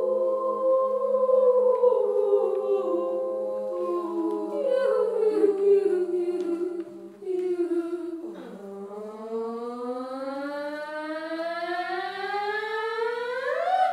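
High school choir singing a cappella in a piece that imitates crying. Held chords slide downward through the first half, then after a brief dip the voices glide slowly upward together in one long rising wail that climbs steeply at the end.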